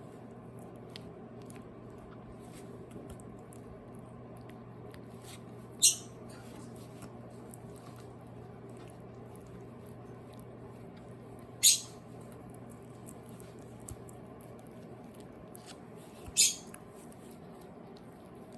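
Shiba Inu puppy's small mouthing and licking clicks, soft and scattered over a steady low hum, broken three times by a short sharp hissy noise.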